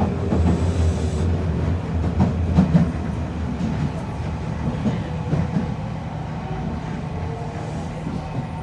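Nagoya Municipal Subway N1000 series train running, heard from inside the passenger car: a steady rumble of wheels on rail with a few clicks over the rail joints, and steady tones from its Mitsubishi IGBT VVVF traction equipment. The sound eases off gradually toward the end.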